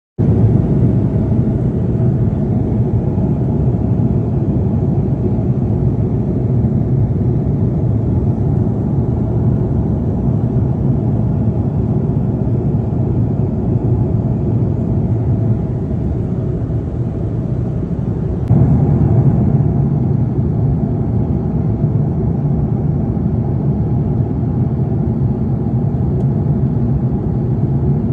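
Steady drone of a jet airliner's engines and airflow heard inside the cabin at cruise, getting slightly louder about two-thirds of the way through.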